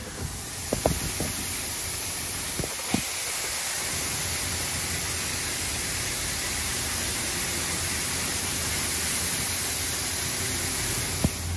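Washworld Razor touchless car wash gantry spraying water and wash chemicals at high pressure over the vehicle, a loud steady hiss heard through an open car window. A few short knocks come in the first three seconds and once near the end.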